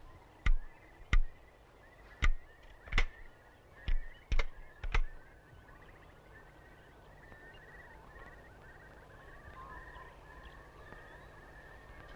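Seven sharp shotgun reports at uneven intervals over about five seconds, as on a game shoot. Then faint birdsong with chirps and warbling calls.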